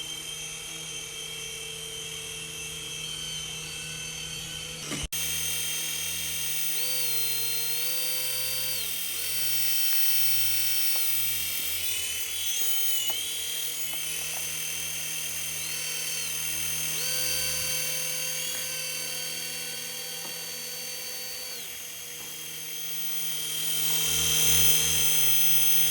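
Small electric motors and rotor blades of a Syma S40 toy RC helicopter whining steadily in flight, the pitch stepping up and down every few seconds as the controls change. It grows louder near the end.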